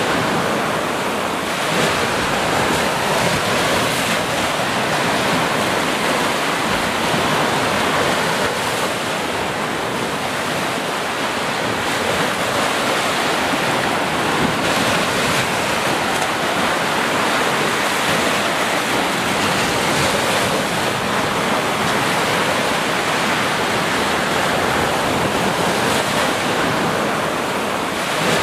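Small ocean waves breaking and washing up a sandy beach: a steady rush of surf that swells and eases slightly in loudness every few seconds.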